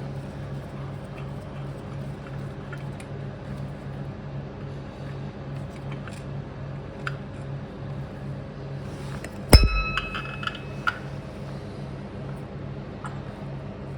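A sharp metallic clink that rings briefly, about two-thirds of the way through, with a few lighter taps around it, as small metal parts or tools are handled during carburettor dismantling. A steady low pulsing hum runs underneath.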